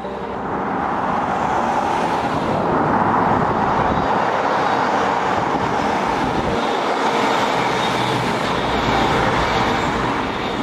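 CrossCountry Voyager diesel multiple unit approaching and passing close by at speed: a steady rush of diesel engine and wheels on rail that builds over the first couple of seconds.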